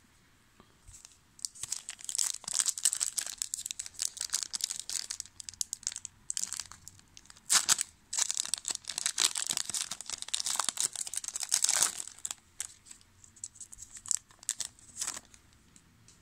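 Foil wrapper of a 2000 Topps Season Opener football card pack crinkling and tearing as it is ripped open by hand, in dense bursts for about ten seconds, then a few lighter crackles near the end.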